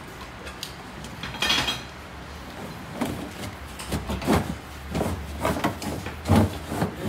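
A series of knocks and clatters from metal parts and tools being handled, the loudest about four and six seconds in, over a faint low steady hum.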